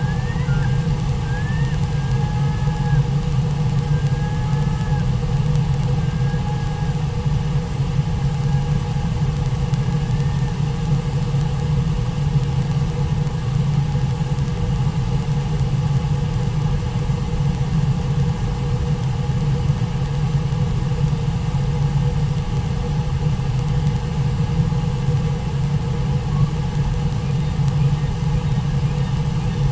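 Steady low rush of a fast-flowing river over rapids, with a few faint high chirps in the first ten seconds.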